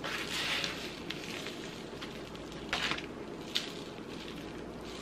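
Paper plates rustling and scraping while hands pat flour onto a thin-pounded slice of liver, with two sharp taps near the middle.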